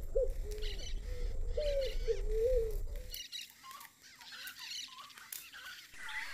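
Wild animals calling: a wavering, fairly low-pitched call over a low rumble for about three seconds, then it breaks off into high, squeaky chirps.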